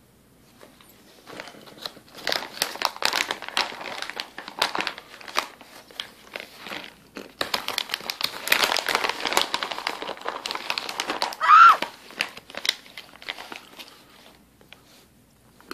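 A plastic snack bag of cashews crinkling and rustling as it is handled, in two long stretches. Near the end a short, loud, high-pitched squeak that rises and falls stands out.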